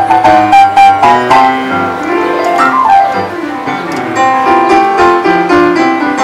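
Piano played with both hands in a quick, busy style, with a sweeping run up and back down the keys about two and a half seconds in.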